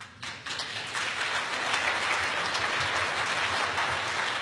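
Audience applauding: a few scattered claps, then a steady round of applause about a second in.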